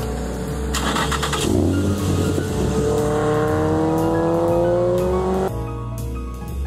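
Nissan Fairlady Z's engine accelerating: after a brief dip about a second and a half in, its pitch rises steadily for about four seconds. Background music plays along, and the engine sound cuts off abruptly about five and a half seconds in.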